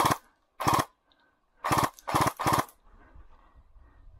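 Airsoft electric gun (AEG) firing five short full-auto bursts at close range, each a quick rattle of shots, all within about the first three seconds.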